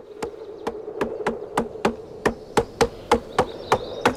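Several sledgehammers striking in turn in a steady rhythm of about three blows a second, a team driving a tent stake.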